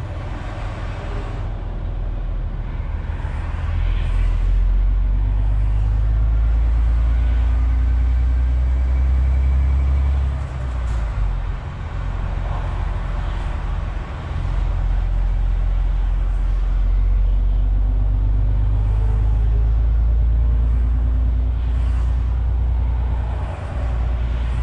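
Steady low drone of the MAN TGX 470's straight-six diesel engine and road rumble, heard inside the truck's cab at motorway cruising speed. The low rumble eases for a few seconds about ten seconds in and again near the end.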